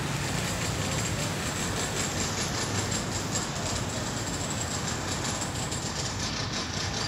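Small air-cooled single-cylinder petrol engine running steadily at constant speed, turning the long drive shaft of a Khmer-made shaft-type water pump.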